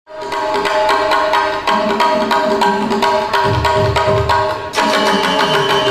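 Sundanese jaipongan music, with kendang hand drums playing over steady pitched tones and a quick, even beat of struck strokes. Deep low drum strokes come in about halfway through.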